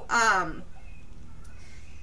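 A woman's voice finishing a word with a falling pitch about half a second in, then a pause with only faint low room hum.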